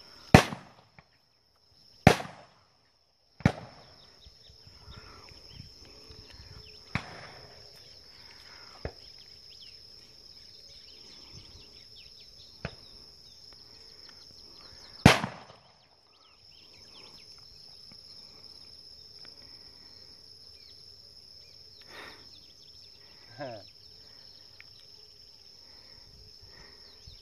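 Shotgun shots at doves: three in quick succession in the first four seconds, a single loud shot about fifteen seconds in, and fainter, more distant shots in between. A steady high insect buzz runs underneath.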